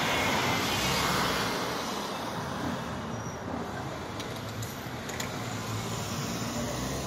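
Road traffic noise: a steady rush of tyres and engines on the street, a little louder in the first second or so. A few faint clicks come about four to five seconds in.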